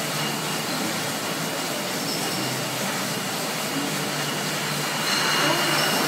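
Steady mechanical din of a Krones beer bottling line running, with conveyors and filling machinery moving glass bottles along. It gets a little louder near the end.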